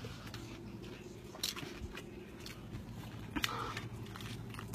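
Biting into and chewing a soft tortilla wrap filled with lettuce and shredded carrots, mostly quiet, with a couple of sharp crunches.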